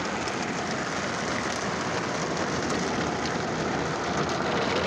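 Car wash water spraying onto the car's windows and body, heard from inside the car as a steady hiss.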